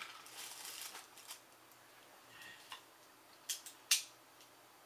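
Handling clicks from RAM modules and a metal hand tool on a workbench: a short rustle at the start, then a few scattered sharp clicks, the two loudest about three and a half and four seconds in.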